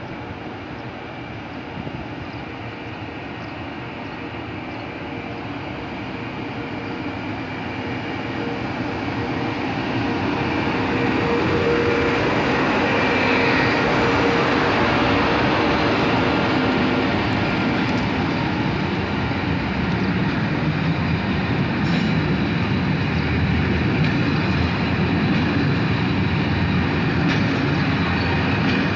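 An FS E.652 electric locomotive hauling a freight train approaches and passes close by, growing louder over the first dozen seconds. After it, the long string of freight wagons rolls steadily past on the rails, with a few sharp clicks from the wheels in the second half.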